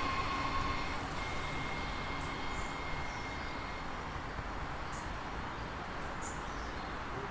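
Class 462 Siemens Desiro HC electric multiple unit receding: a low rumble that slowly fades. Its steady electric motor whine dies away within the first few seconds, with a few short bird chirps over it.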